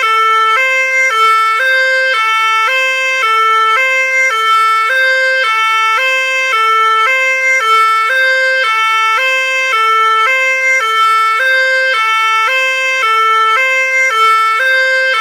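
Fire engine's two-tone siren sounding continuously, switching back and forth between a higher and a lower note at an even pace, with a steady loudness and no change in pitch over time.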